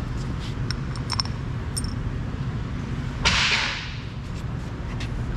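Light metallic clinks of steel bolts being handled and set into a heavy final drive cover, over a steady low shop hum. About three seconds in comes a short, loud hiss that fades within half a second.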